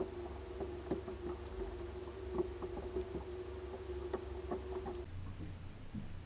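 Boat engine idling: a steady hum over a low rumble, with scattered light clicks and knocks. The hum cuts off about five seconds in.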